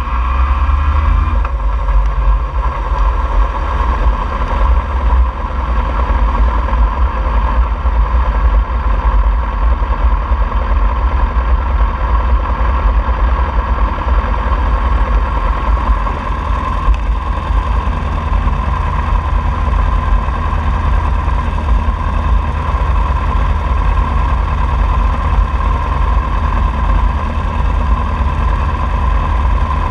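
Onboard sound of a 2003 Honda CBR600RR's inline-four engine running steadily at low revs, a continuous low rumble with no revving.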